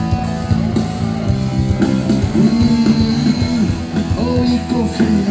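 Live band playing loud rock-style music with guitar, and a voice singing over it.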